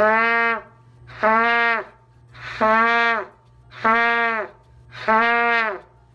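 Trumpet playing five short notes on the same low C (concert B-flat), each started and stopped with the breath alone, without tonguing. The pitch dips as each note ends.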